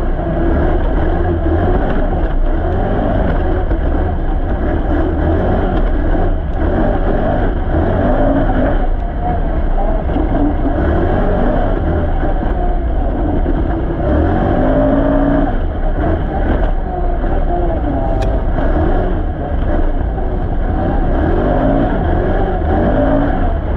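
Can-Am Renegade XC ATV's V-twin engine running under riding load, its pitch rising and falling over and over as the throttle is opened and eased off.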